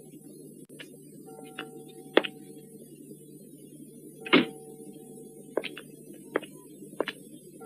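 Church bell tolling slowly on an old film soundtrack, one struck note about every three seconds, with sharp knocks in between.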